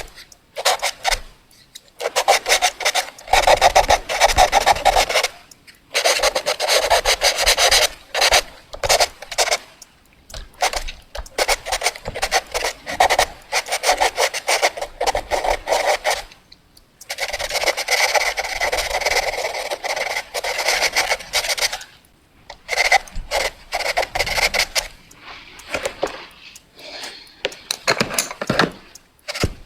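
Pencil scratching quickly across paper in fast back-and-forth strokes. The strokes come in runs of a few seconds, broken by short pauses, with one longer run past the middle.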